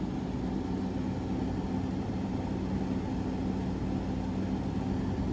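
6,000 BTU General Electric window air conditioner running with a steady hum, its compressor not yet started.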